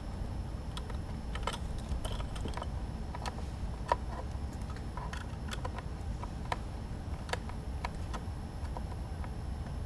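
Scattered small clicks and taps of a hand screwdriver working a small screw into the plastic back plate of a radio-control transmitter, with the transmitter's plastic case knocking as it is handled and turned over, over a steady low hum.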